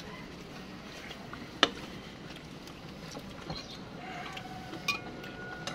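Metal spoon and fork clinking against ceramic bowls while eating soup: one sharp clink about a second and a half in and a smaller one near the end, over a steady background hum. A faint steady tone runs through the last second or two.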